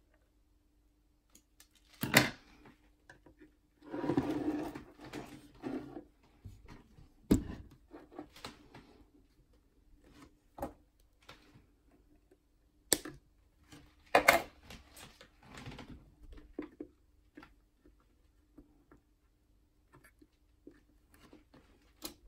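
Sparse sharp clicks and taps of small hand tools and components on a workbench as a capacitor lead is cut to length with cutters and soldered onto a potentiometer casing, over a faint steady hum.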